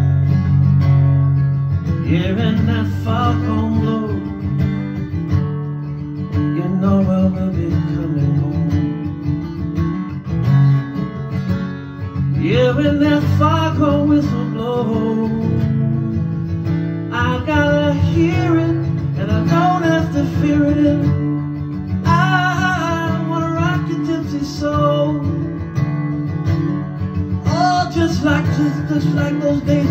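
A man singing over a strummed acoustic guitar; the guitar plays alone for the first couple of seconds, then the voice comes in phrases of a few seconds each, with wavering held notes.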